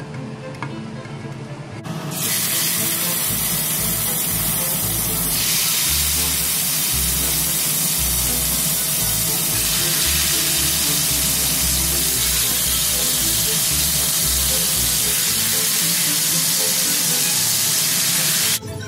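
Beef steaks sizzling loudly in hot cooking oil in a stainless steel pot. The sizzle starts suddenly about two seconds in as the meat goes into the oil, holds steady, and cuts off suddenly near the end.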